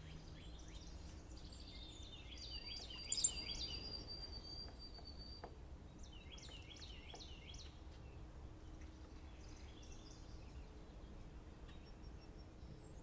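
Blue jays and starlings calling. Several bursts of quick repeated high chirps come near the start, about two to four seconds in and about six to seven and a half seconds in. A long steady whistle runs from about two and a half to five and a half seconds in, and the loudest call comes about three seconds in.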